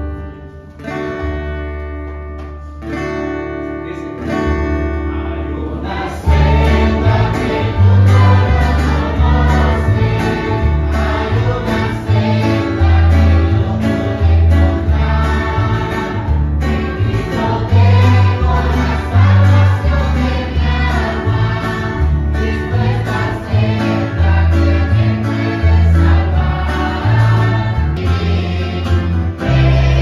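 Live church worship band: guitar chords for the first few seconds, then the full band comes in louder with a strong bass line and a group of voices singing together.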